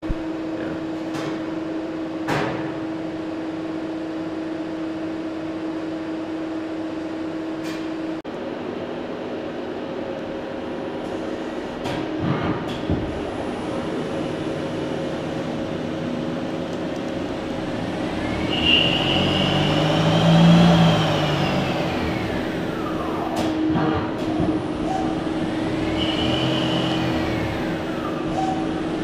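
Okuma L200 CNC lathe running, its spindle turning the chuck: a steady machine hum with a few sharp clicks. In the second half the spindle motor whine rises and falls in pitch twice as the spindle speed changes.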